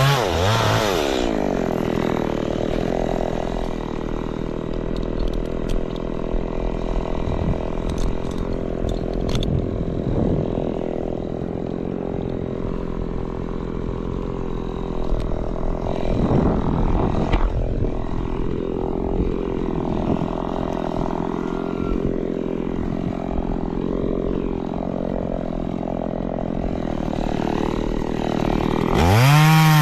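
Chainsaw engine idling steadily between cuts, after the revs die away about a second in; it revs up again near the end.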